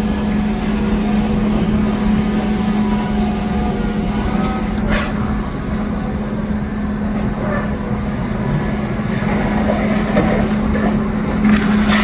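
Demolition excavator's diesel engine running with a steady hum, with a couple of short sharp knocks, one about five seconds in and one near the end. Heavy low rumble from wind buffeting the microphone.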